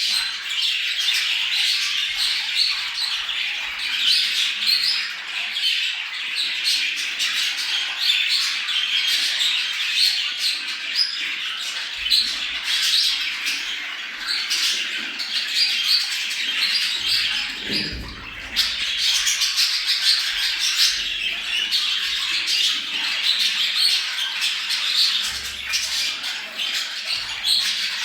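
A flock of budgerigars chattering, warbling and squawking without a break, many voices overlapping. This is the chatter of budgies in breeding condition, the kind played to other budgies to bring them into breeding mood.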